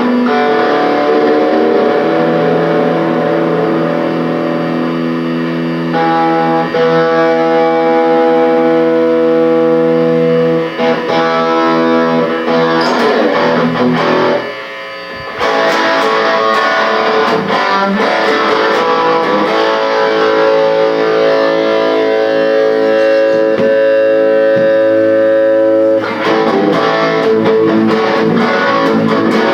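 Guitar music: held chords and single notes left to ring out, changing every few seconds, with a short break about halfway through.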